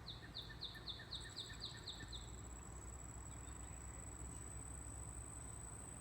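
A songbird calls a quick series of about nine short falling notes, roughly four a second, over the first two seconds. A high, steady insect trill from a cricket or katydid starts about a second in and carries on.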